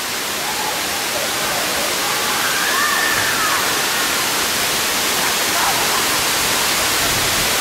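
Waterfall pouring into a plunge pool: a steady, even rush of falling and splashing water.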